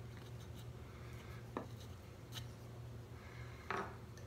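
Small hand carving tools working a plywood woodcut block: a few faint scraping cuts and clicks, then a louder knock near the end as a wooden-handled carving tool is set down on the wooden workbench. A steady low hum runs underneath.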